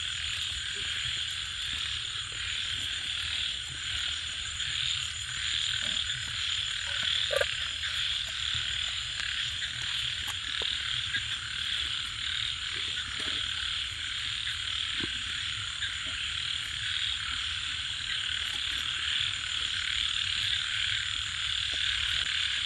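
A dense, steady chorus of frogs calling without a break.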